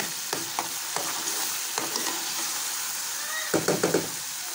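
A tarka of ginger-garlic paste, green chillies and tomato sizzles in hot oil in an aluminium frying pan while a metal spatula stirs it, scraping and tapping against the pan. A quick run of louder scrapes comes about three and a half seconds in.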